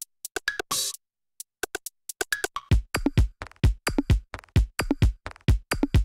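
Electronic dance drum loops previewed one after another: a sparse loop of short clicky percussion hits, a brief gap, then a four-to-the-floor beat with a deep kick drum about twice a second under crisp hi-hats.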